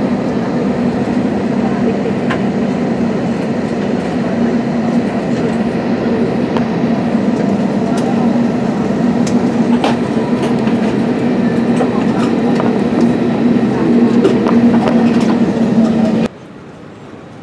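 Steady engine drone and rattling heard from inside a vehicle rolling across an airport apron, with scattered clicks and knocks. About a second before the end it cuts abruptly to a much quieter, steady background.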